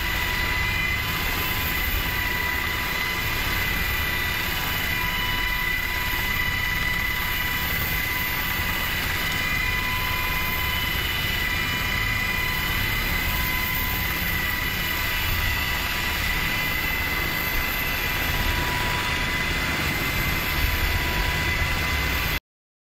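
Helicopter cabin noise with the side door open: a steady din of rotor and engine with a steady high whine over it, cutting off abruptly near the end.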